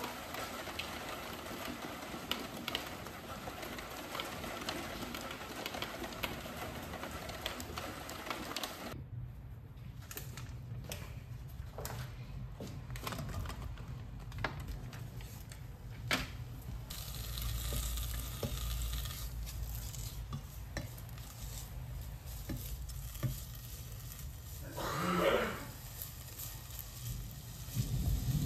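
Cooking in a pan: food sizzling, with scattered clicks of a utensil against the pan.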